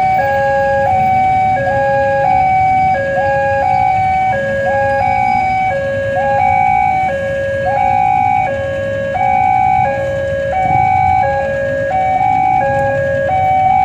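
Railway level-crossing warning alarm sounding as a train approaches: an electronic two-tone chime alternating high and low about once a second, with a low rumble underneath.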